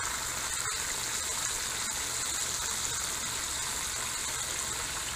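Battered bream frying in hot oil in a skillet on a propane camp stove: a steady sizzle, with a light tap less than a second in.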